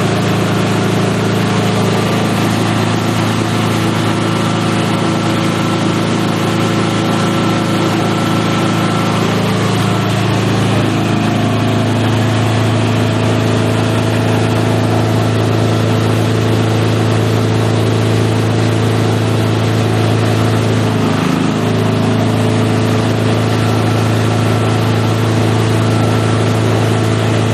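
A multi-purpose chopper-shredder machine running with a steady motor hum; the hum changes pitch slightly about ten seconds in and dips briefly about twenty-one seconds in.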